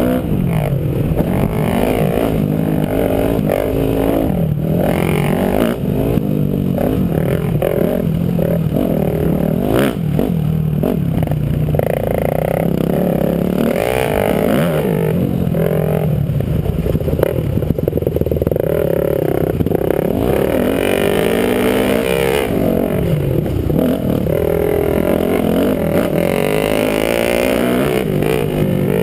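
Dirt bike engine ridden hard over a motocross track, its revs climbing and dropping over and over as the throttle is worked and gears change.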